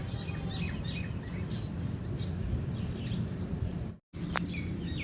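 Birds chirping in short calls over a steady low outdoor rumble, with a thin high steady tone above. The sound cuts out for a moment about four seconds in.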